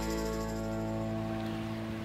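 Background instrumental music: a held chord rings on and slowly fades away.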